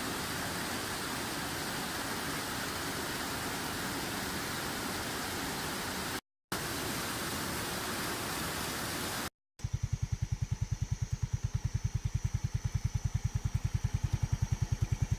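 A steady, even rushing noise in two cut-together stretches, each stopping abruptly; then, from about ten seconds in, a small motorbike engine idling with a rapid, even putter.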